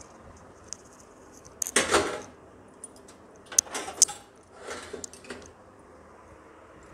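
Kitchen utensils being handled: clattering and metallic clinking in three short bursts about two, four and five seconds in, the middle one with sharp clicks.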